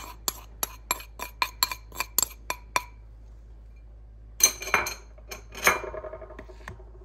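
Metal spoon tapping against a glass bowl in quick clinks, about four a second, as flour is knocked out of it. Near the middle there are a few louder clanks, one of them ringing on briefly.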